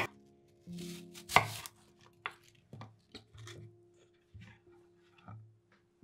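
Chef's knife cutting a green apple into chunks on a wooden cutting board. A few crisp slicing cuts and knocks of the blade on the board, the loudest about a second and a half in, then several lighter taps.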